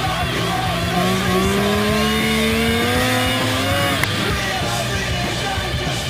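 Music mixed with an Arctic Cat snowmobile's engine, which rises steadily in pitch from about a second in as the sled picks up speed.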